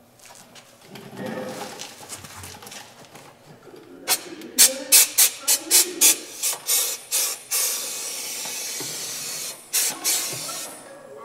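Compressed-air electrostatic powder-coating gun spraying black powder: a run of short hissing bursts, about two or three a second, then a steady hiss lasting about two seconds, then two more short bursts.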